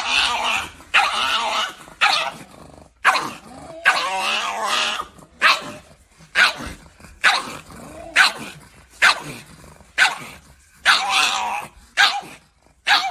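Pug barking over and over while held up, about one call a second, some calls short and some drawn out.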